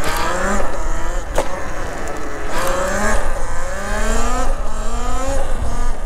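Talaria Sting electric dirt bike with a GLE BAC8000 controller, its motor whining and rising in pitch several times as the rider accelerates. Under it runs a heavy rumble of wind buffeting the microphone at speed, and there is one sharp knock about a second and a half in.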